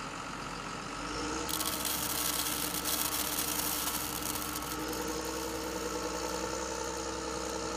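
A steady engine hum, like a big farm machine idling. From about a second and a half in until nearly five seconds, a hiss of small dry pasta pours from a toy forage harvester's spout onto a heap in a plastic trailer.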